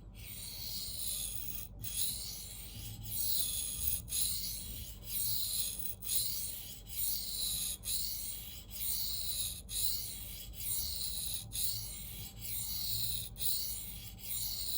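Knife edge of CPM 4V steel stroked back and forth across a 1200-grit diamond sharpening plate: a rasping hiss in repeated strokes, about one a second, with short breaks between them. This is the 1200-grit refining stage, which evens out the scratch pattern and flips the burr from side to side.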